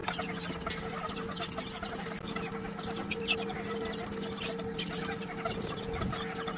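Young turkeys and guinea fowl peeping and chirping as they peck at lettuce held out by hand, many short high calls overlapping throughout. A steady low hum runs underneath.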